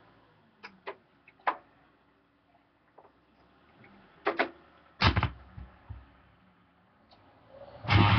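Clicks and knocks of a turntable tonearm being handled over a 7-inch vinyl single, with a heavier low thump about five seconds in as the stylus is set down on the record. Guitar music from the record starts near the end.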